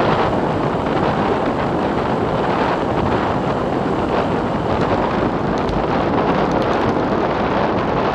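Wind rushing over a bike-mounted action camera's microphone while riding at speed, a loud steady roar of wind noise.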